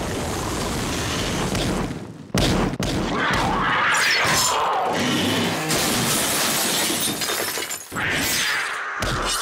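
Cartoon sound effects of buildings being smashed and collapsing: crashing, shattering and rubble noise, loud and dense, with short breaks about two seconds in and near the end.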